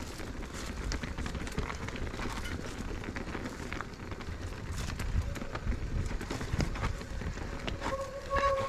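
Mountain bike rolling down a wet singletrack: a steady rumble of tyres on the trail with scattered clicks and rattles. Near the end the brakes, wet, start to squeal with a steady high tone.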